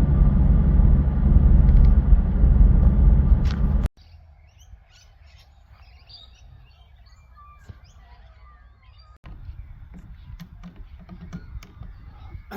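Steady road and engine rumble from inside a moving car, cut off suddenly about four seconds in. Birds then chirp and call over a quiet outdoor background, which grows a little louder about nine seconds in.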